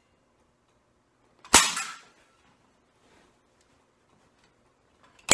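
A hand staple gun fired twice, each a sharp snap, once about a second and a half in and again at the very end. It is driving staples through the stretched pool table cloth to fasten it.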